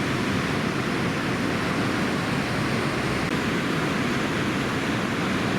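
Steady rushing noise of heavy typhoon surf breaking on a reef, an even roar with no single wave standing out.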